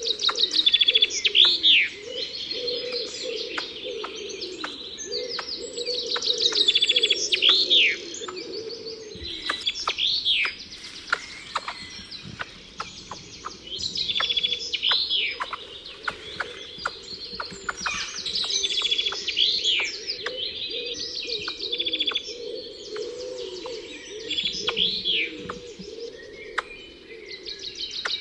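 Songbird singing, repeating a phrase of fast trills and sweeping arched notes every four to five seconds, with a lower wavering sound running underneath.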